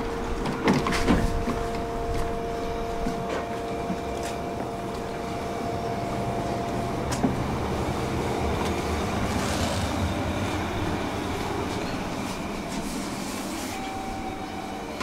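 Electric tram standing at a stop with a steady electrical whine, and a few knocks early on as passengers step aboard. The whine stops about seven seconds in with a click. A low rumble of the tram's motors and wheels on the rails then builds as it moves off.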